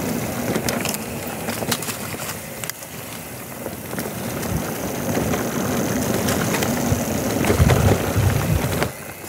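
Electric mountain bike rolling down a dry, dusty dirt trail: steady tyre noise over dirt and stones, with many short rattles and knocks from the bike over bumps and a few heavier low thumps near the end.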